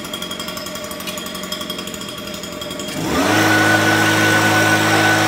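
Gas-powered handheld leaf blower idling with a fast, even chatter, then throttled up about three seconds in: its pitch rises quickly and holds at a steady, louder full-throttle run.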